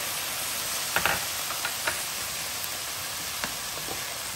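Stir fry sizzling steadily in a hot nonstick skillet as sauce is poured in. A spatula stirs the pan, giving a few short clicks and scrapes against it.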